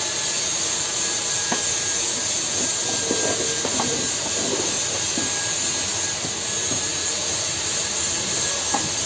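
Steady, loud hiss of rushing air or gas, with a few faint clicks and soft clatter of handling in the middle.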